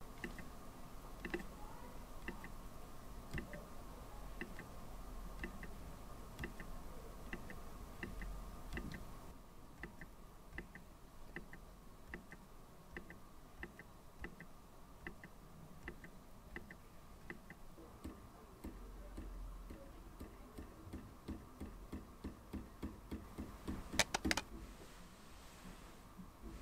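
Faint ticking at roughly one tick a second, sometimes closer together, with a short cluster of louder sharp clicks near the end.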